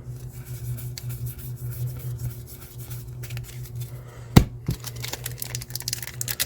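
Trading cards being handled and flipped through: soft paper rustles and light clicks, with one sharp tap about four and a half seconds in, over a steady low hum.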